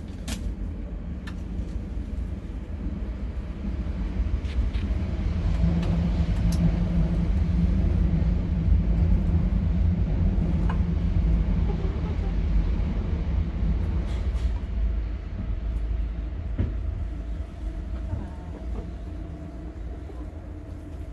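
Low rumble of a large vehicle passing, with a steady low hum, building over several seconds, strongest midway and fading towards the end.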